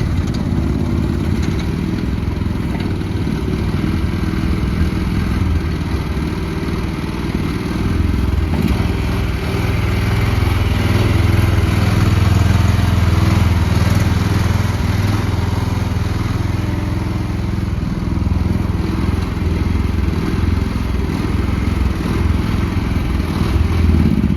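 Mini excavator's Briggs & Stratton engine running steadily while the machine is operated, getting louder from about eight seconds in and easing back after about fourteen.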